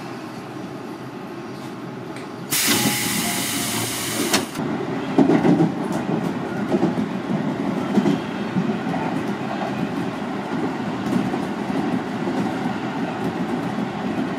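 Commuter train heard from inside the car: a steady running rumble, with a loud burst of air hiss about two and a half seconds in that lasts about two seconds, after which the rumble is louder and rougher.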